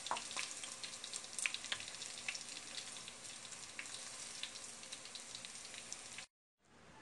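Chicken necks frying in hot oil in a pan: a steady sizzle with frequent sharp crackles and pops. It cuts off suddenly about six seconds in.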